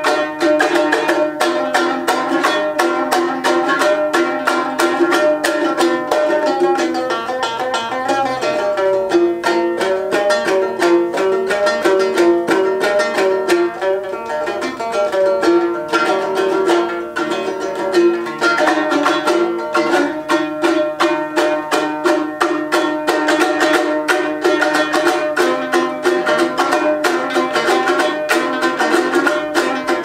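Komuz, the fretless three-stringed Kyrgyz lute, played solo: fast strumming of rapid, ringing plucked notes, easing into a more openly picked melody in the middle before the dense strumming returns.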